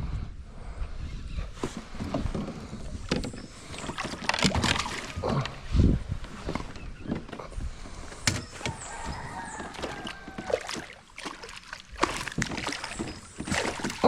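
Irregular knocks and splashes of a hooked fish being fought up to a kayak on a spinnerbait. A bird calls with a long falling cry partway through.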